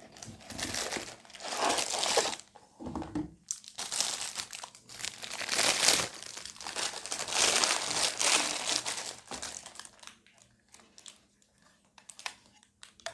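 Packaging being unwrapped by hand, crinkling and tearing in irregular bursts for about nine seconds, then a few light handling clicks.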